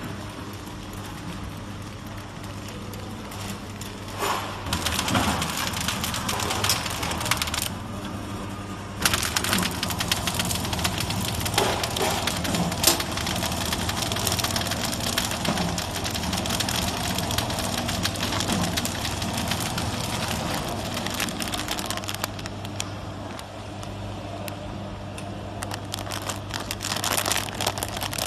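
Multi-snack flow-pack wrapping machine running: a steady motor hum under a busy clatter of conveyor and sealing mechanism, with scattered clicks.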